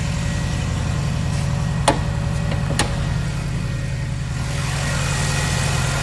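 Subaru flat-four engine with an aftermarket exhaust idling steadily, with two sharp clicks about two and three seconds in as the hood is released and raised; after that the engine's hiss comes through more clearly.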